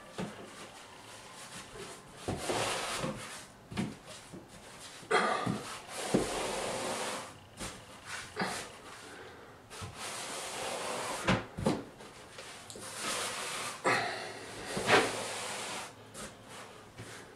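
Grout float scraping over wall tile, pressing premixed single-component grout into the joints in repeated strokes, with scattered knocks of the float against the tile.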